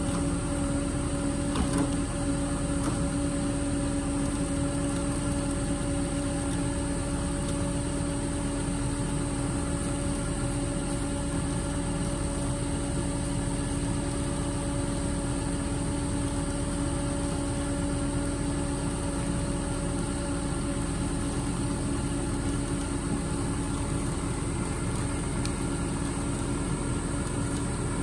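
Tilt-tray tow truck's engine idling with a steady, even hum. A few faint knocks sound about two seconds in.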